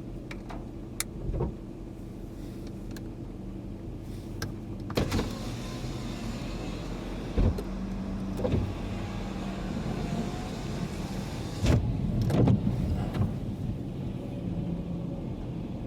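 Car engine idling steadily, with a few knocks and thumps; the loudest cluster comes about twelve seconds in.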